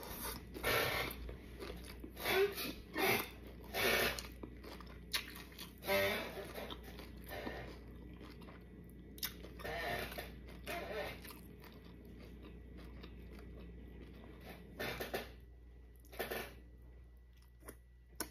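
A person chewing and crunching on a taco, in irregular bites and chews with quieter stretches in between.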